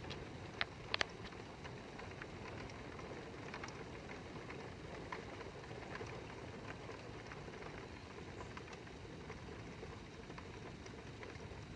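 Steady rain falling during a thunderstorm, with scattered drops tapping close by. A few sharp clicks come about a second in.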